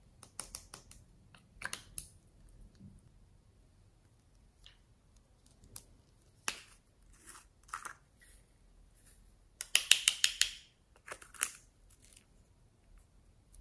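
Small plastic cosmetic containers being opened and handled: scattered sharp plastic clicks and snaps, with a loud, rapid run of clicks about ten seconds in.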